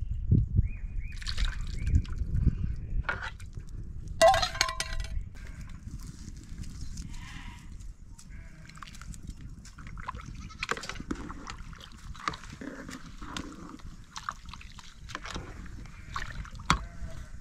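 Livestock bleating, with one loud bleat about four seconds in, over liquid sloshing and scattered light knocks.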